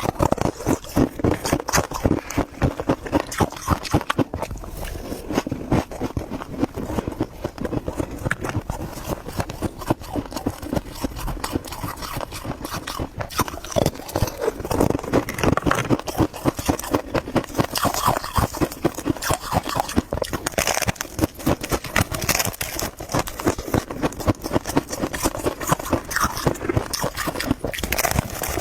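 Freezer frost being chewed close to the microphone: steady, rapid crunching, a few bites a second.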